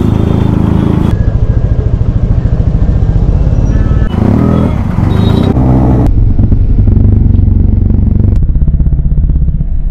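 Benelli TNT 300's parallel-twin engine revving hard again and again, its exhaust note rising and falling as it rides through traffic.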